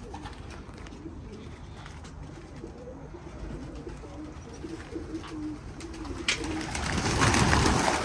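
Domestic pigeons cooing, a low wavering coo that runs on for about six seconds; then a sharp knock, and a louder rushing noise near the end.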